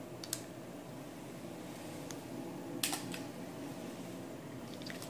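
Small sharp plastic clicks from a micropipette and sample vials being handled on a lab bench, three in all, the loudest about halfway through, over a faint steady room hum.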